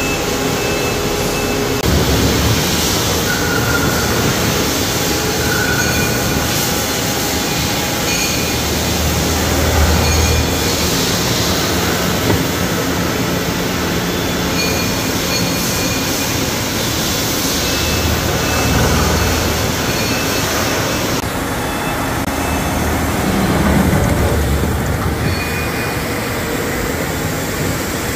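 Loud, steady machine-shop noise from CNC machining centres milling forged steel truck front-axle I-beams: a continuous whir and hiss, with low rumbles swelling a few times and a couple of short high-pitched tones.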